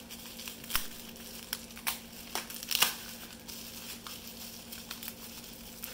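Bubble wrap crinkling as it is handled and pulled off a wrapped object, with scattered sharp crackles; the loudest comes a little under three seconds in.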